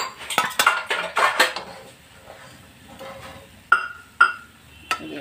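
Perforated steel skimmer clattering and scraping against a steel kadai as fried thekua are lifted out of the hot oil. A run of clanks comes in the first second and a half, then two short ringing clinks near the end.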